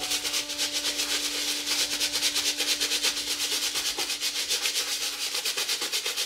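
A stiff bristle brush scrubbing a foamy white sneaker in quick, even back-and-forth strokes, under soft background music.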